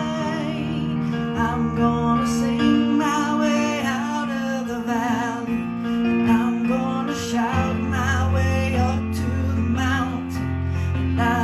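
Slow church music played on an electronic keyboard: sustained chords with a melody line above them.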